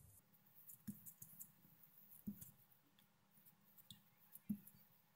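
Faint soft knocks and clicks of a palm pressing and kneading crumbly chhena against a plate, three knocks about a second and a half apart.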